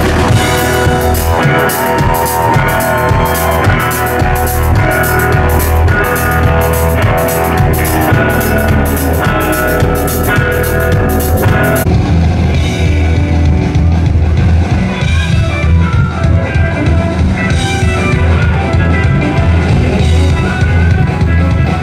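Live rock band playing, with electric guitars, an upright double bass and a drum kit. A steady, bright drum beat runs through the first half and drops away about twelve seconds in.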